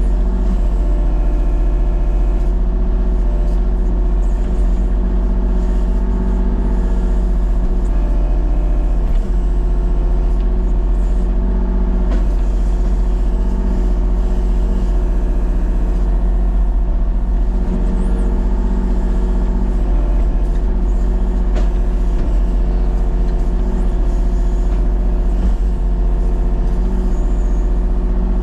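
Engine of a small tree-clearing machine running steadily at constant speed, with a strong low hum.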